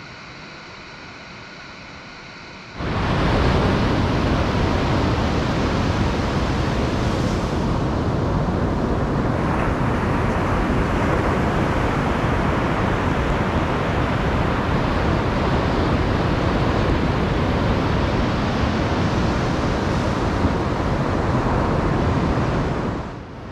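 Ocean surf breaking and washing on a sandy beach, with wind rumbling on the microphone. It is a loud, steady rush of noise that starts suddenly about three seconds in, after a short, much quieter stretch of faint hiss.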